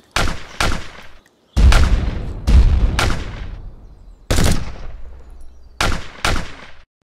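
Battlefield rifle gunfire: about eight separate shots, each with an echoing tail. The two loudest, about one and a half and two and a half seconds in, carry a deep boom.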